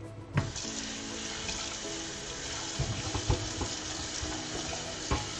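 Kitchen mixer tap turned on about half a second in, its water running steadily into a soapy pot in a stainless steel sink. A few knocks sound as the pot is handled, near the middle and near the end.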